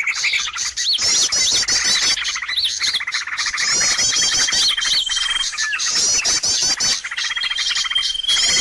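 Bird-lure recording of many small birds calling at once, a noisy mixed chorus: quick repeated chirp series high up, short arching notes, constant dense chatter, and a thin whistle held for about a second several times.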